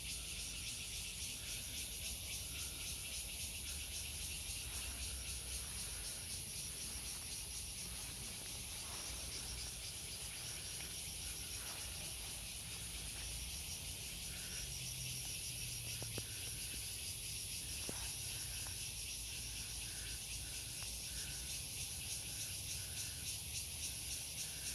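Steady high-pitched insect chorus, shrill and rapidly pulsing, with a few faint clicks or knocks.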